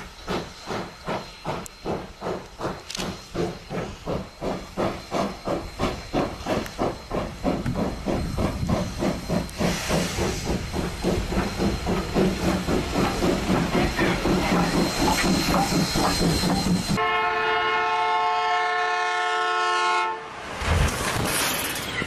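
Steam locomotive working hard through snow drifts, its exhaust chuffing in a steady beat that quickens as it gathers speed. About seventeen seconds in, its whistle sounds a chord of several steady notes for about three seconds.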